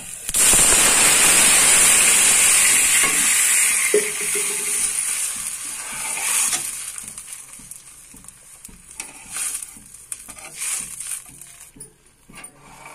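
Water poured into hot oil with fried mustard seeds and green chillies in a kadhai: a loud hissing sizzle that starts suddenly about half a second in and dies away over several seconds. A slotted steel spoon then stirs the pan.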